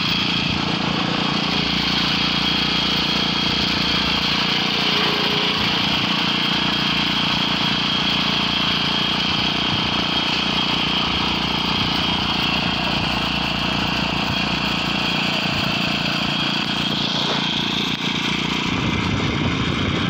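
Concrete plate vibrator's small engine running steadily as the plate is worked over freshly poured slab concrete, compacting it.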